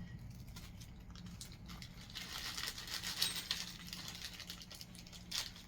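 Faint crinkling and rustling of plastic packaging as small accessories are handled, loudest about two to four seconds in, with a few light clicks.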